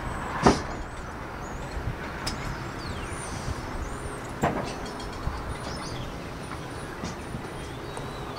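Steady outdoor background of distant road traffic rising from the street below, with two sharp knocks about half a second and four and a half seconds in, and faint high chirps.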